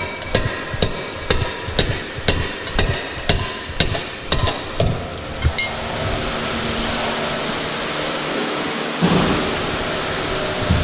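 Steel bar knocking upward at a frozen drain trap under an aluminum livestock trailer, sharp metallic strikes about two a second for five seconds as the ice-bound trap is hammered loose. Then a steady rushing hiss of the hot-water spray, with one thump near the end.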